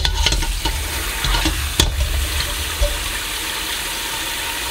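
Tap water running steadily onto cooked soba noodles in a stainless-steel mesh strainer in a metal sink. Chopsticks stirring the noodles make a few light clicks against the strainer in the first two seconds.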